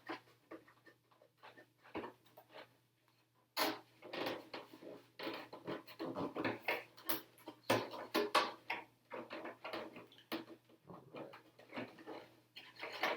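Handling noises of a sticker sheet and a plastic RC truck body: irregular rustles, crinkles and light taps, starting in earnest after a short lull about three and a half seconds in.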